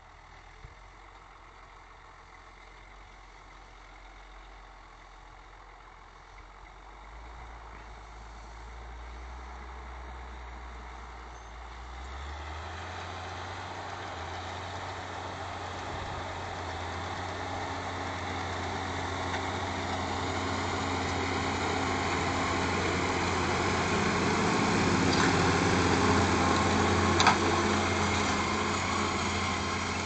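Claas Ares 836 RZ tractor engine working under load as it pulls a power harrow and seed drill across the field. It grows steadily louder as the rig approaches and passes close by, and the engine note steps up in pitch about twelve seconds in.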